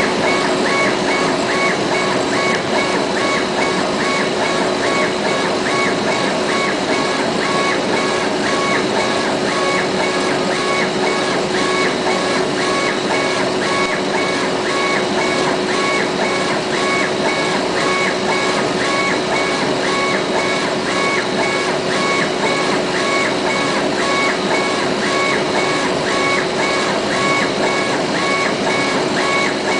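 CNC laser engraver raster-engraving leather: the gantry motors whine in a short pattern that repeats about every 0.7 seconds as the head sweeps back and forth, over a steady hum and hiss from the machine's fan and air.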